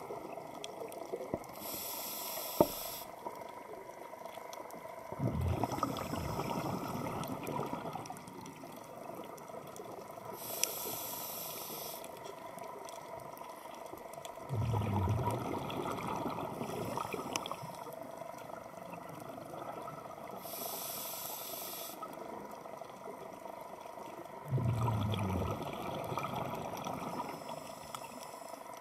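Scuba breathing through a regulator underwater: a hiss on each inhale, then a few seconds later a louder low rush of exhaled bubbles. Three breaths about ten seconds apart, with faint scattered clicks throughout.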